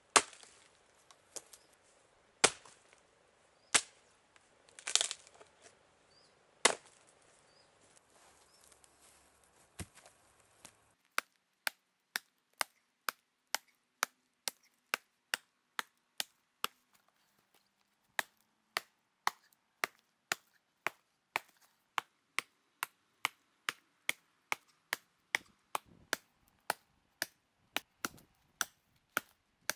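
A valaška shepherd's axe chopping into wood. A handful of spaced heavy blows come over the first ten seconds or so, then a fast, even run of chops about two a second, broken by a short pause near the middle.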